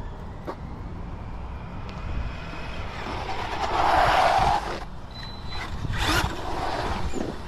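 A vehicle driving past: a rush of motor and tyre noise builds from about three seconds in and cuts off sharply just before five seconds, with a second, shorter pass about a second later, over a steady low rumble.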